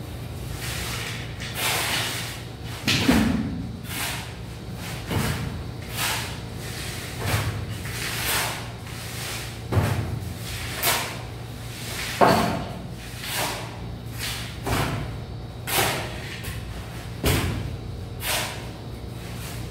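Hand tools scraping and knocking on a sand bed as it is levelled for floor tiles, with a wooden board and trowel striking and dragging across the sand. The sounds come at uneven intervals, roughly one a second, over a low steady hum.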